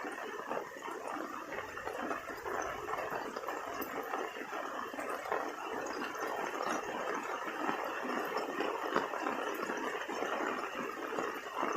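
Heavy rain falling steadily, a dense even hiss of many small drops.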